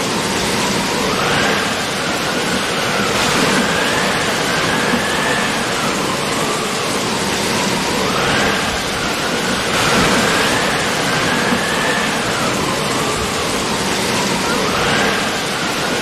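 Steady rushing noise of the swollen Godavari River in flood. Behind it a fainter whine slowly rises and falls in pitch, cycling every several seconds.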